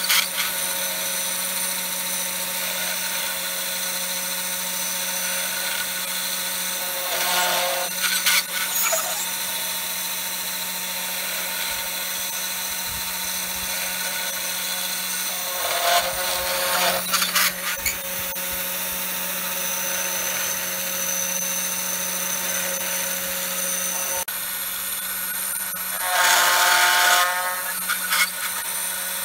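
CNC router spindle running with a V-bit, carving letters into a sign board: a steady high whine over a low hum. It gets louder, with a more pitched edge, three times: about seven seconds in, around sixteen seconds, and near the end.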